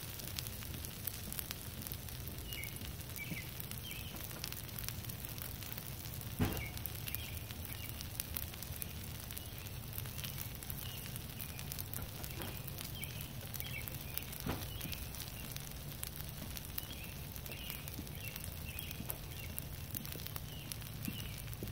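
Noodles and vegetables crackling and sizzling gently on a hot Blackstone flat-top griddle over a steady low hum, with birds chirping in the background. Two sharp clicks stand out, one about a third of the way in and one about two-thirds in.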